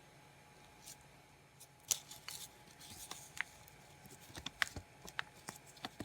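Faint, irregular clicks and taps of small toy-car parts being handled and worked at the bench, with the sharpest clicks about two seconds and four and a half seconds in.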